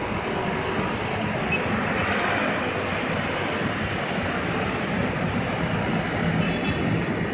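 Busy street traffic dominated by many motor scooter engines running together at an intersection, a steady drone.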